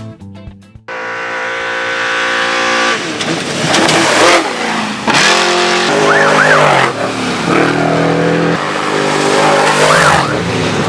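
Off-road race vehicle's engine at high revs, starting suddenly about a second in, its pitch stepping up and dropping back several times, over a loud hiss of tyres and dirt.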